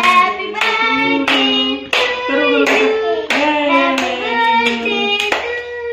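Singing with hands clapping in a steady beat, about three claps every two seconds.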